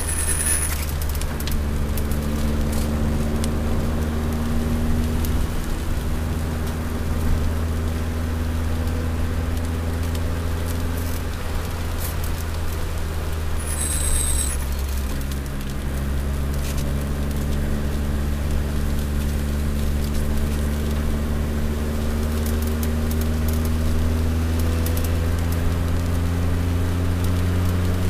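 Toyota Celica All-Trac's turbocharged four-cylinder engine heard from inside the cabin at speed on track. The engine note sags and rises through the corners, breaks off briefly about halfway, then climbs steadily to the end. There is a short high-pitched squeal about halfway in, and a faint one at the very start.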